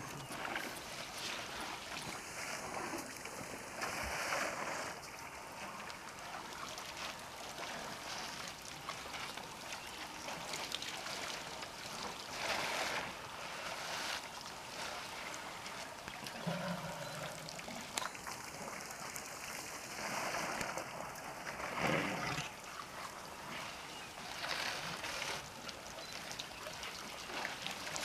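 Water splashing and trickling as a herd of African elephants drink at a waterhole, their trunks drawing up and spilling water, over a steady hiss, swelling louder a few times.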